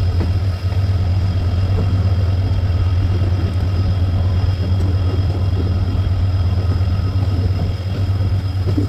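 The two-stroke V16 EMD diesel engine of a WDP4 locomotive humming as a deep, steady drone, with faint steady higher tones above it.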